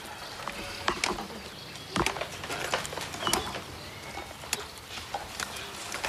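Kea parrots pecking and fiddling with hard plastic objects: irregular clicks and knocks of their beaks, with a few short, faint bird calls.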